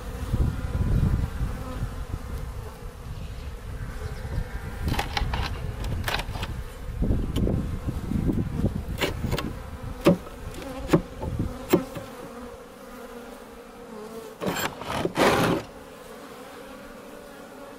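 Honey bees buzzing steadily around an open hive, with handling noise from the hive boxes and frames being worked. There are a few sharp clicks about ten to twelve seconds in and a louder scraping burst a few seconds before the end.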